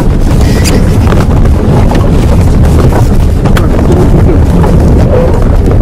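Loud, steady rumble from a vehicle moving out of control, with wind buffeting the microphone and a few sharp knocks scattered through.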